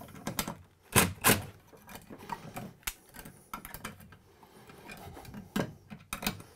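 Irregular clicks and knocks of a cordless drill-driver and screw against a steel electrical box as a ground wire is screwed down, the loudest pair about a second in.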